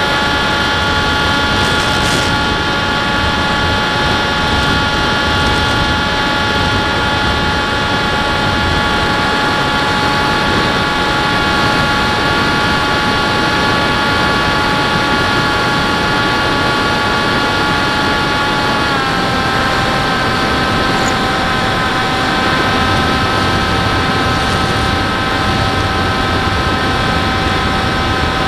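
Model airplane's motor and propeller running at steady cruise throttle, heard from the onboard camera: a steady whine over a rush of wind noise. About two-thirds of the way through the whine drops slightly in pitch as the throttle is eased back a little.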